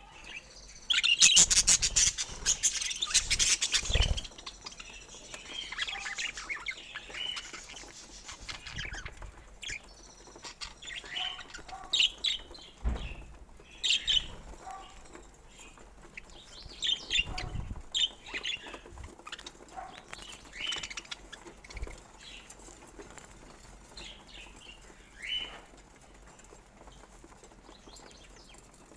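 Pet budgerigars chirping and chattering in short, scattered calls. About a second in there is a loud, dense burst of rapid calls lasting about three seconds.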